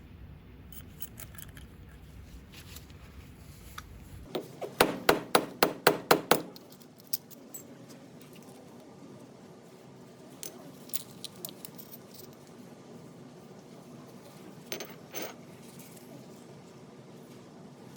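Small metal parts of an air angle grinder being handled and tapped: a run of about eight quick, sharp taps a little over four seconds in, then a few scattered clinks.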